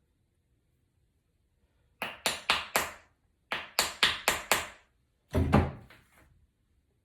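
A quick run of hard taps, about four a second, in two groups, followed by one heavier, duller knock: hard handling of the iPad and small tools on the bench.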